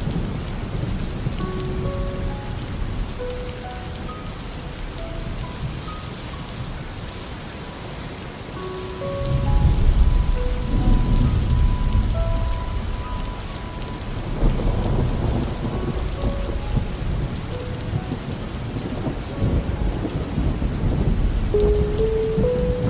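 Steady rain falling, with rolling thunder: a long, deep rumble swells up about nine seconds in, and another follows around fifteen seconds.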